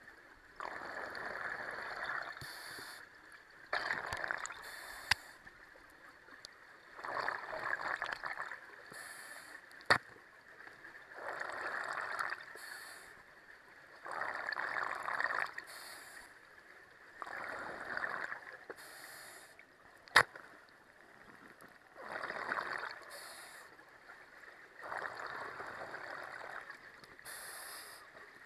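Scuba diver breathing underwater through a regulator: a hiss and a rush of bubbles repeat every three to four seconds. A few sharp single clicks stand out, the loudest about twenty seconds in.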